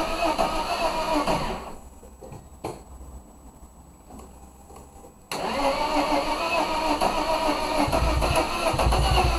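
Mercedes-Benz M104 straight-six engine running, then dying away about a second and a half in. A few seconds of quiet follow, broken by a single click, before the engine sound returns abruptly about five seconds in. It runs on with a strong, even low pulsing near the end.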